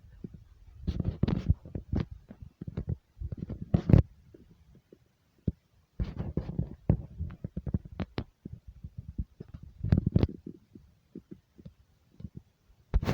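Irregular knocks, thumps and rattles over a low rumble, coming in uneven clusters with short lulls.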